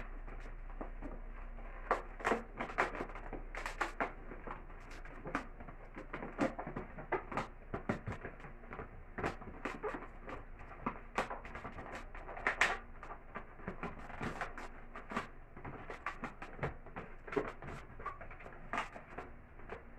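A 260 latex modelling balloon being handled and bent into shape, the latex rubbing and squeaking against itself and the hands in many short, irregular squeaks and scrapes.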